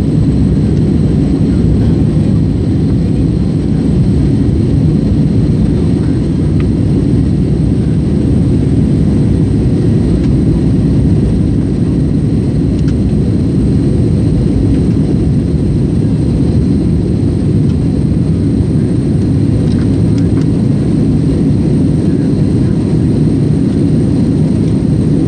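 Airbus A321neo cabin noise in the climb: the steady low rumble of the jet engines and rushing air, heard from inside the cabin at a window seat.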